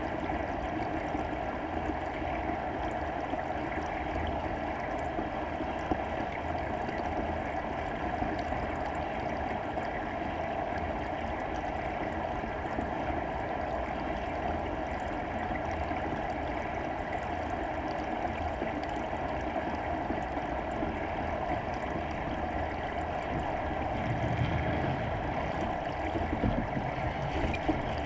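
Steady, muffled rushing of water heard by a camera submerged in its waterproof housing, with a louder low rumble near the end.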